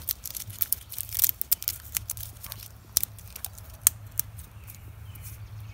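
A cat's claws scratching tree bark: a quick run of rasping scratches that thins out to a few separate ones after about half the time.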